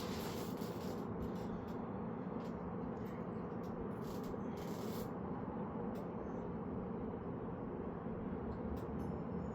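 Steady low hum from a background motor or fan, with a scatter of short rustling scrapes during the first five seconds or so.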